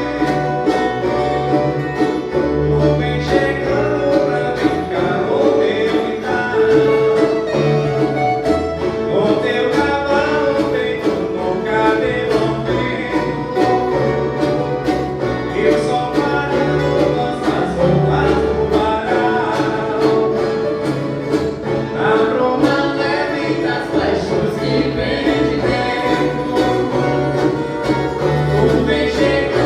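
Viola caipira orchestra (ten-string Brazilian folk guitars) playing a Christmas piece: many plucked strings over a bass line.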